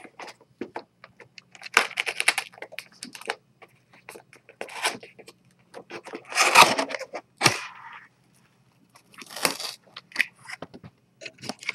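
Keyboard box packaging being opened and handled: irregular bursts of tearing, crinkling and scraping, with small clicks between them.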